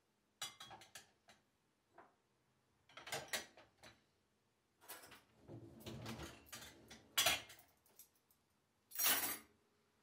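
Glasses and glass jars clinking and knocking against a dishwasher's wire rack as they are lifted out, in several short clusters of light clinks. About nine seconds in comes one louder, longer rattle.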